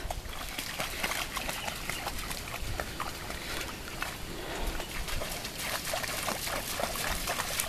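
Two Belgian Shepherd dogs wading through shallow lake water, making quick, irregular splashes as their paws strike the surface and one dabs its muzzle at the water.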